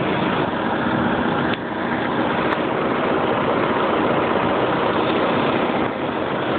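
BMW M73 5.4-litre V12 engine of a 1995 750iA idling steadily, heard as a dense, muffled mechanical noise. The idle is rough, and a metallic tapping from the lower passenger side of the engine bay is taken by the seller for a possible hole in the exhaust manifold.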